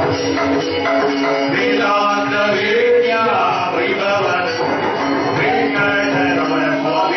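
Men's voices singing a Hindu devotional bhajan over a steady held drone, with hand-drum strokes keeping time.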